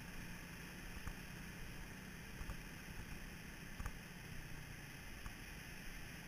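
Faint, steady hiss of wind and surf on an open beach, with a few light clicks.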